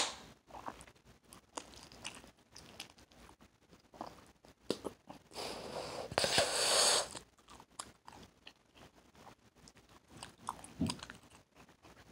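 Hubba Bubba bubble gum being chewed open-mouthed: wet smacks and clicks of lips and tongue, the sharpest right at the start. A little past halfway comes a breathy hiss of about a second and a half as air is blown into a gum bubble, then a few more smacks near the end.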